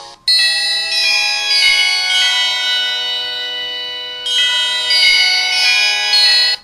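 Samsung SCH-E560 mobile phone playing a ringtone: a melody of bell-like chime notes, starting after a brief gap and cutting off abruptly at the end.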